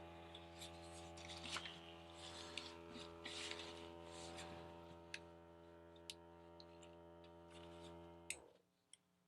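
The battery-powered pump of a Jet Gun coil cleaner running with a faint steady hum, with light handling clicks, then switched off about eight seconds in. The pump runs, but no water is coming out of the hose.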